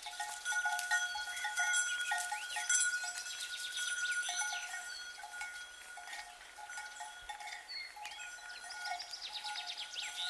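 Cowbells on grazing livestock clanking in irregular clusters, with a steady high ringing tone beneath them.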